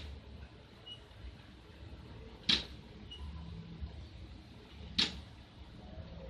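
Two sharp clicks, about two and a half seconds apart, over a faint low hum.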